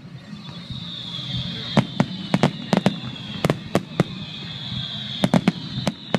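Fireworks going off in a fast, irregular series of sharp cracks, some in quick clusters. Under them runs a high whistling tone that slowly falls in pitch.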